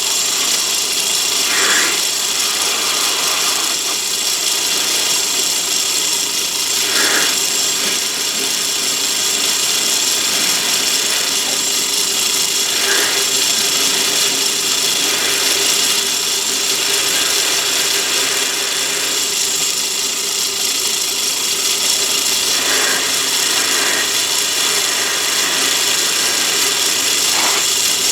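Myford ML7 metalworking lathe running steadily while a parting tool in a rear tool post cuts into brass bar, a continuous mechanical whir with a high hiss and a few brief swells.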